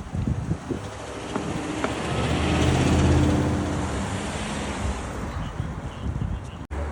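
A motor vehicle driving past on the street, its engine and tyre noise rising to a peak about three seconds in and then fading away.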